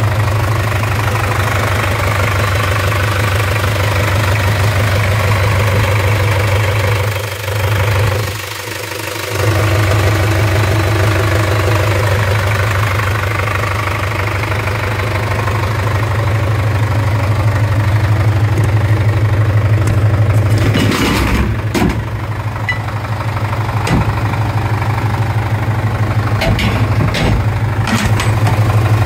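Mitsubishi Canter fire truck engine idling steadily, with a few short knocks and clicks in the second half.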